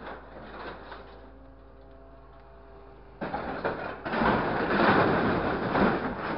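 Hydraulic orange-peel grapple on a scrap-handling truck moving a load of corrugated sheet-metal scrap: a steady whine from the hydraulics for a couple of seconds, then about four seconds in a loud, continuous clatter and crunch of the metal sheets dropping into the truck's steel bed and being pressed down by the grapple.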